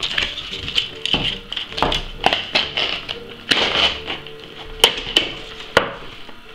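Cardboard box and paper packaging being opened and handled: a series of sharp taps, clicks and rustles, over background music with held tones.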